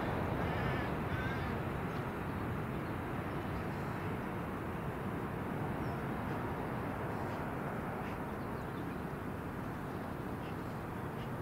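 Steady, distant rumble of a four-engined jet airliner at cruising altitude, fading slowly, with a few faint bird calls near the start.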